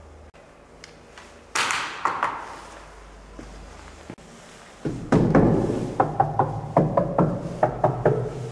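A single thump about a second and a half in, then from about five seconds a quick run of sharp knocks on old wooden stair steps as they are tested by hand before climbing.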